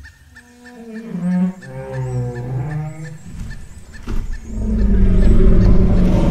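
Dinosaur calls on a film soundtrack: a long, low call that wavers in pitch, over a fast, faint ticking. About four seconds in there is a sharp knock, then a loud, deep sound.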